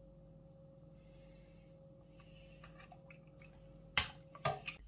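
Metal spoon stirring soup in a stainless steel pot, with faint liquid sounds and small clicks, then two sharp clinks of the spoon against the pot near the end, over a faint steady hum.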